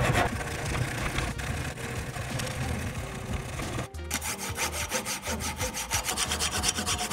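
Fine-toothed hand saw cutting through a block of walnut clamped in a bench vise: quick, even back-and-forth rasping strokes, with a brief break about four seconds in.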